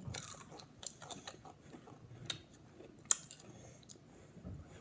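A person chewing a Pringles potato crisp, with scattered crisp crunches and crackles, the sharpest about three seconds in.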